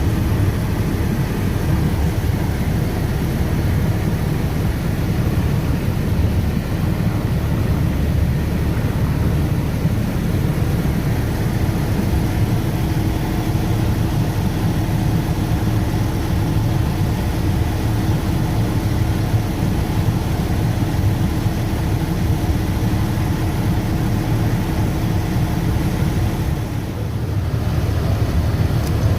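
An engine running steadily: a constant low rumble with a faint steady hum over it.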